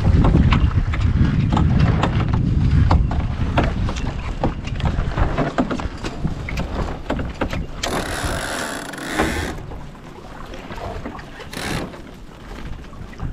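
Wind buffeting the microphone and water slapping and rushing along the hulls of a small sailing catamaran under way, with frequent short knocks and clicks. A burst of hiss comes about eight seconds in and lasts over a second, with a shorter one near the end, and the whole eases off in the last few seconds.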